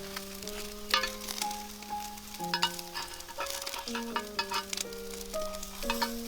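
Food sizzling as it fries in a pan, with stirring and a few sharp utensil clicks, over background music of held notes.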